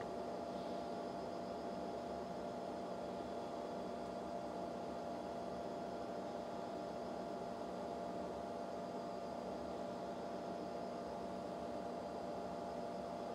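Steady hum with a faint hiss.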